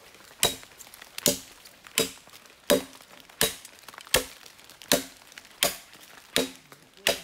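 An axe chopping into a wet log in a steady rhythm of about ten blows, roughly one every three-quarters of a second, each a sharp knock with a short ring.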